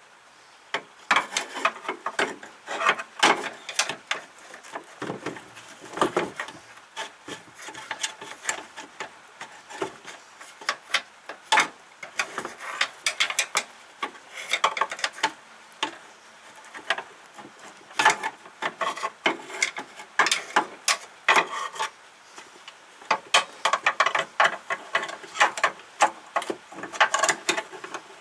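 Hand-tool work on car parts: irregular scraping, rubbing and clicking strokes, some in quick runs, with no steady machine sound.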